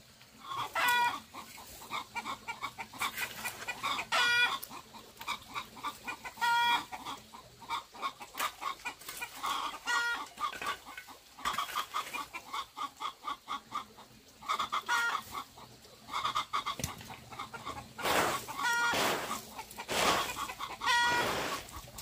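Chickens clucking repeatedly, short pitched calls coming every few seconds with runs of quick clucks between them. Near the end a straw broom sweeps scratchily over the dirt.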